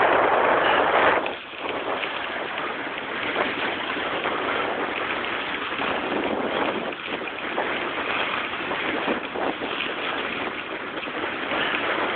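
Steady rushing noise of skiing downhill: runners sliding over packed snow with air rushing past the microphone, loudest in the first second and dipping briefly just after.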